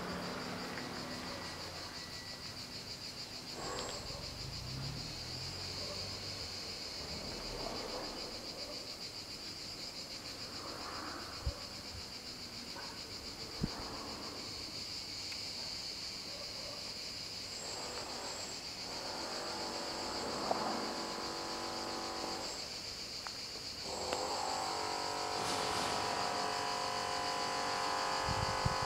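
Insects shrilling steadily in a high, continuous buzz. Near the end, an approaching train's engine hum comes up and slowly grows louder.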